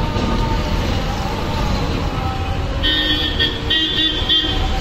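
Steady low rumble of road traffic, with a vehicle horn sounding in a few short toots during the second half.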